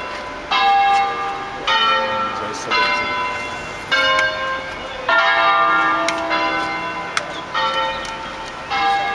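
Church bells of the Basilica di Sant'Anastasia rung in the Veronese system (concerto style, bells swung full circle). Single bells strike one after another about once a second, at shifting pitches, each note ringing on and fading slowly.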